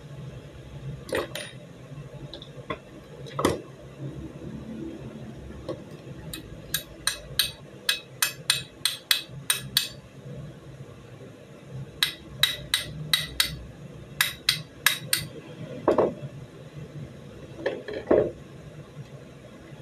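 Small metal parts of a Beretta 92FS pistol being worked by hand: two quick runs of sharp metallic clicks, about four a second, with a few duller knocks in between.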